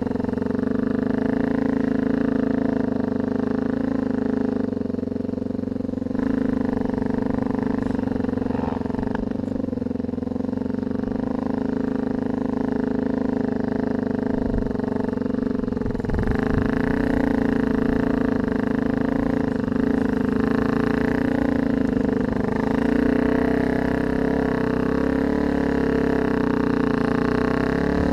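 Didgeridoo drone as background music: one low, steady pitch held throughout, with a wavering, buzzing overtone pattern.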